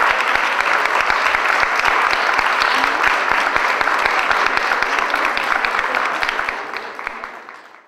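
Audience applauding: many hands clapping together, fading out over the last second or so.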